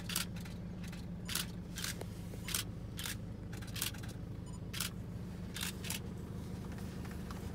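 DSLR camera shutter firing repeatedly, short sharp clicks about once a second, some in quick pairs, over a steady low hum.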